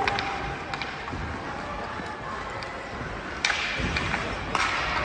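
Ice hockey play echoing in a large, nearly empty arena: sharp clacks of sticks and puck and skate blades scraping the ice, with two louder knocks about three and a half and four and a half seconds in, each followed by a short hiss.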